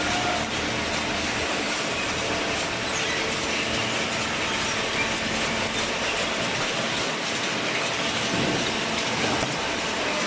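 Hydraulic cardboard baler running: a steady mechanical noise with rattling, holding an even level throughout.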